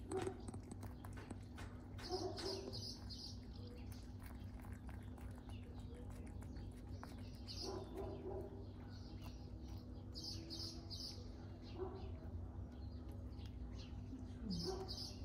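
A cat licking its chops, wet smacking in short quick runs every few seconds, over a steady low hum.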